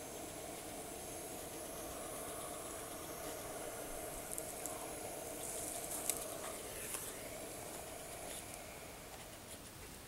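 Windproof jet lighter hissing steadily while it is held to kindling in a rocket stove's firebox. A few faint crackles come about halfway through as the kindling begins to catch.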